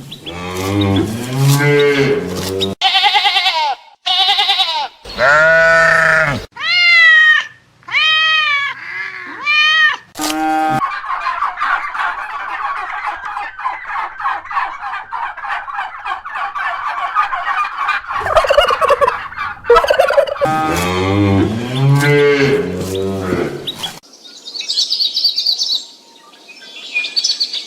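A string of different farm-animal calls played one after another, among them cattle mooing and poultry calls, with high bird chirps near the end.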